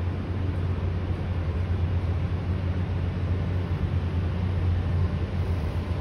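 Steady low rumble and hum of street noise with no change in level; no bird calls stand out.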